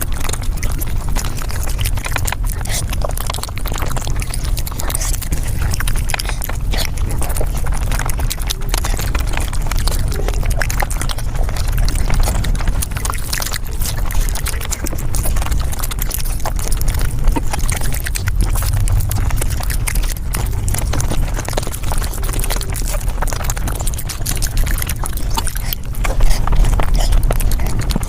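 Mukbang eating sounds sped up five times: chewing, smacking and slurping run together into a dense, continuous patter of rapid clicks over a steady low rumble.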